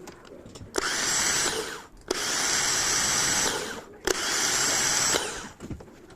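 Bosch truck starter motor spinning free on a bench test, run three times: each run starts with a sharp click and a high steady whine, then winds down as it is released.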